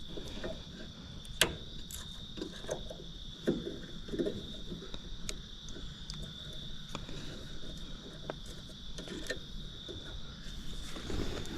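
Steady high-pitched insect trilling, unbroken, with scattered light clicks and knocks over it.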